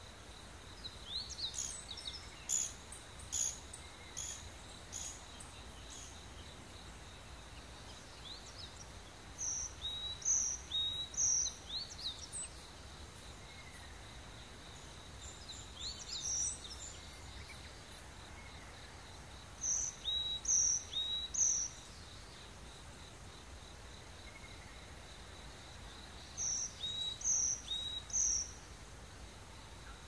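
Tropical rainforest morning ambience: birds calling in short groups of three or four bright notes every several seconds, over a steady high insect drone.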